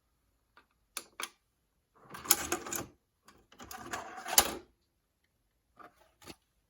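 Mechanism of a GE VG2051 VHS VCR clicking and whirring: two sharp clicks, two rattling mechanical runs of about a second each, then two more clicks near the end.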